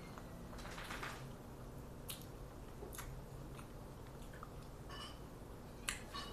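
Faint chewing and biting of corn on the cob coated in crushed Hot Cheetos: wet mouth sounds with a few small clicks.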